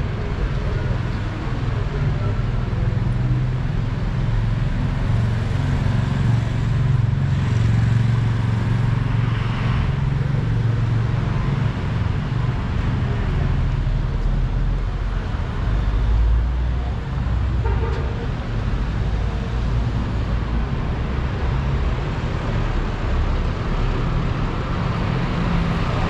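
City street traffic: motor vehicle engines running close by, a steady low rumble that grows heavier about sixteen seconds in.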